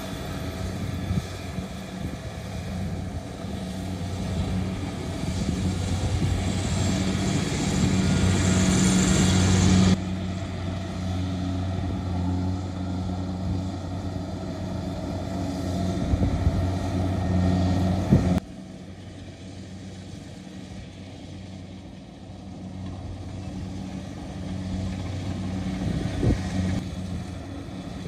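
Rice combine harvester's diesel engine running steadily under load with its cutting and threshing gear, a low hum under a rushing mechanical noise. The sound changes abruptly about ten seconds in and drops noticeably quieter about two thirds of the way through.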